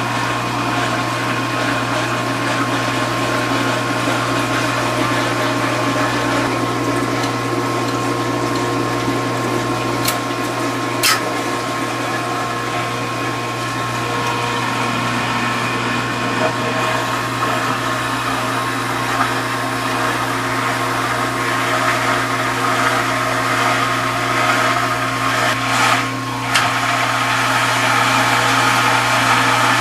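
KitchenAid KDS-18 Superba dishwasher running a wash cycle: its motor and wash pump hum steadily while water sprays and splashes inside the tub. Two sharp clicks come about ten and eleven seconds in.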